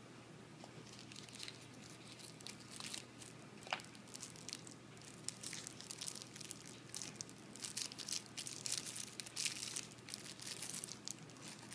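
Thin plastic wrapper crinkling and tearing as it is peeled off a new fountain pen by hand: many short crackles that get busier from about halfway through.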